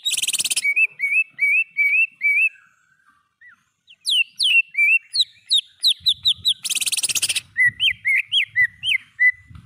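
Cucak ijo (green leafbird) singing a fast series of short rising whistled notes, broken twice by a loud harsh rattle, once at the start and once about seven seconds in, with a brief quieter lull around three seconds.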